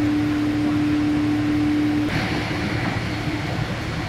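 Jet airliner cabin noise during takeoff: a steady engine rumble with a held hum on top. The hum stops about two seconds in, leaving a rougher, hissier rush of cabin noise.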